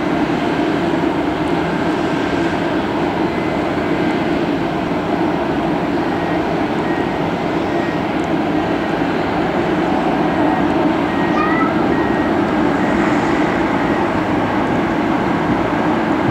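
Twin jet engines of a Boeing 777-200 at takeoff thrust as the airliner lifts off and climbs: a steady, loud rumbling noise that grows slowly louder.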